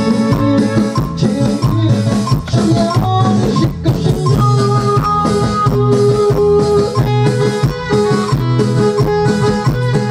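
Loud dance music played over a DJ's party sound system: a track with guitar, bass and drums and a steady beat.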